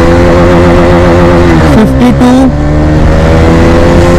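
Bajaj Dominar 250's single-cylinder engine accelerating hard, its pitch climbing steadily, dropping sharply once just under two seconds in as the rider shifts up, then climbing again.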